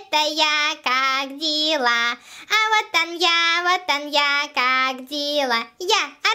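A child's voice singing a nursery song in short phrases of held notes.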